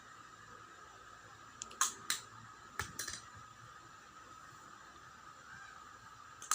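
A few short, sharp clicks and taps from small makeup items being handled, a cluster about two to three seconds in and one more near the end, over a faint steady hum.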